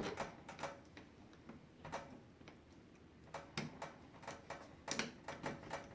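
Light, irregular metallic clicks and taps of door knob hardware being fitted and its screws turned in.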